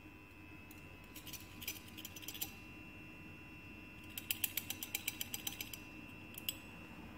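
Rapid ratchet-like clicking from a pipette filler's thumbwheel as liquid is let out of a glass pipette into a saline dilution tube. It comes in two quick runs of clicks, each about a second long, a couple of seconds apart, then one last click.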